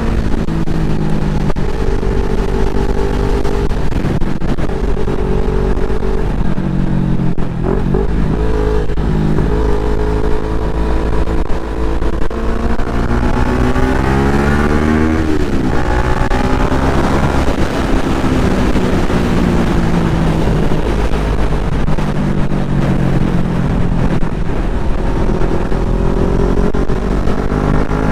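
CFMoto 400NK parallel-twin motorcycle engine heard from the rider's seat, pulling through the gears: its pitch climbs and drops back several times as it shifts. Steady wind rush buffets the microphone underneath.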